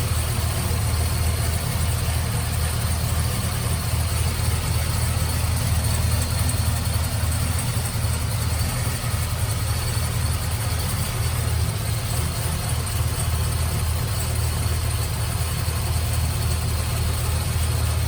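LSA-supercharged LS2 V8 idling steadily. The new serpentine belt runs quiet, with no belt chirp.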